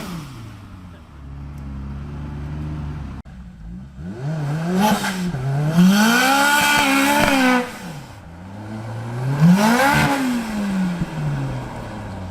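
Toyota Hilux pickup's turbocharged 4A-GE four-cylinder engine revving hard: a short blip, then two long pulls that climb to high revs and fall away, the second peaking about two-thirds of the way in.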